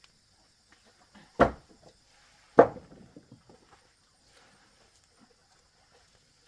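Two heavy thuds a little over a second apart, each followed by a few small knocks. A faint steady high hiss runs throughout.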